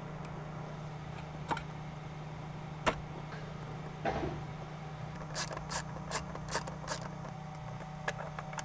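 Plastic clicks and knocks of a sun visor and its mount being fitted and clipped into a vehicle's roof trim: a few single clicks, then a quick run of about five past the middle and two more near the end, over a steady low hum.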